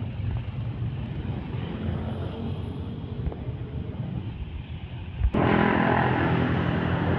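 Road traffic with a heavy truck's diesel engine running at a low, steady hum as it passes among motorbikes. About five seconds in, the sound cuts abruptly to a louder, closer diesel of a Hino 500 dump truck approaching.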